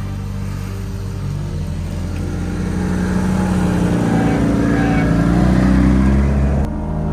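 Jeep engine revving under load off-road, growing louder over a few seconds, then cut off abruptly near the end.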